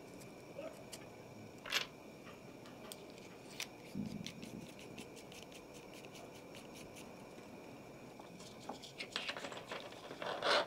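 Small clicks and rattles of plastic and metal parts handled as a soldering iron handle is put back together, its heating element and sleeve fitted into the grip. A quick run of louder clicks comes near the end.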